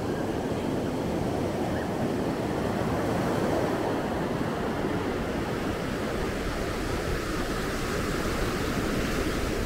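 Ocean surf breaking and washing up a sandy beach: a steady rush of water.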